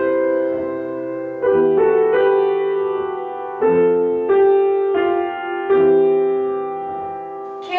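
Upright piano playing a slow piece: chords struck every second or so, each left to ring and fade before the next.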